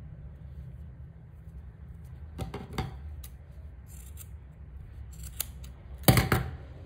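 Steel scissors snipping through knotted T-shirt yarn to trim the loose ends: several short snips, the loudest near the end.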